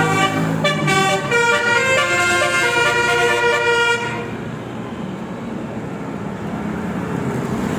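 Basuri 'telolet' musical horn playing a quick tune of stepped notes for about four seconds, then stopping and leaving steady vehicle engine and road noise.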